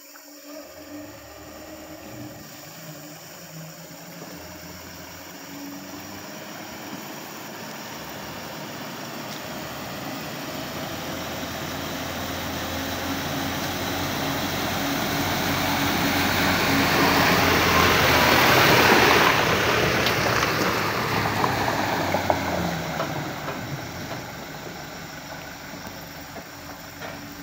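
Diesel engine of a loaded Mitsubishi light dump truck running as it drives through floodwater, with the rush and spray of water thrown up by its wheels. It grows steadily louder as the truck approaches, is loudest about two-thirds of the way through as it passes, then fades.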